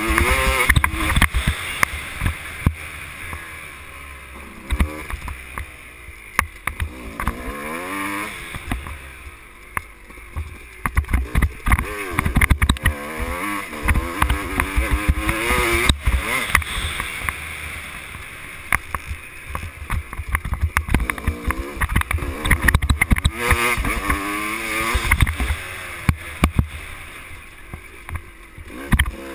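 On-board sound of a dirt bike engine revving on a motocross lap, its pitch climbing and dropping again and again as the rider accelerates and backs off, over a low wind rumble on the microphone, with scattered sharp knocks from the bumps.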